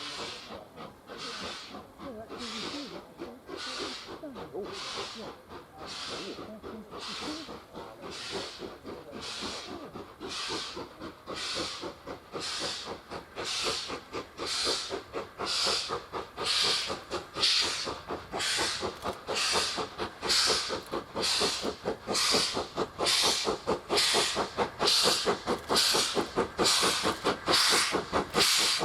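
Ex-LMS Ivatt 2MT 2-6-2T steam tank locomotive's exhaust beats, even chuffs about one a second, growing steadily louder as it comes closer, working hard up a steep climb.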